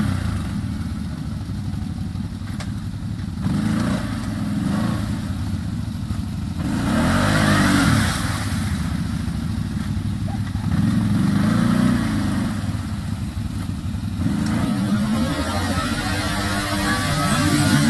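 CFMoto X8 ATV's V-twin engine running, its pitch rising and falling several times as the throttle is opened and eased off.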